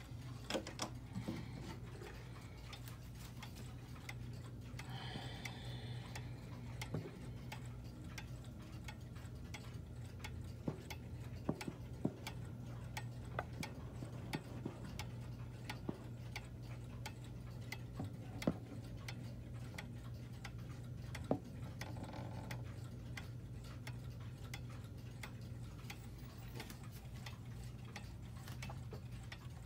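Howard Miller Lewis triple-chime wall clock ticking steadily as its pendulum swings, over a steady low hum.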